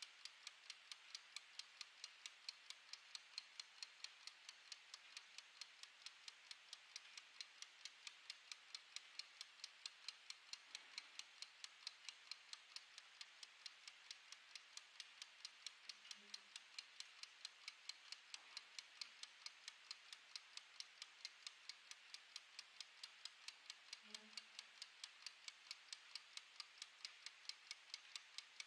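Mechanical wind-up kitchen timer with a plastic case, its clockwork escapement ticking fast and evenly, several faint ticks a second, as it counts down.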